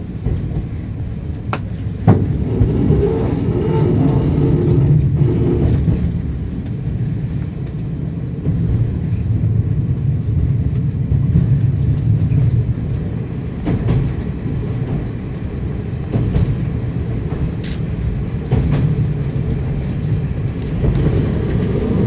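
Inside a JNR KiHa 52 diesel railcar under way: its DMH17 diesel engines running under a steady low rumble of wheels on rail, with a few sharp clicks from the track.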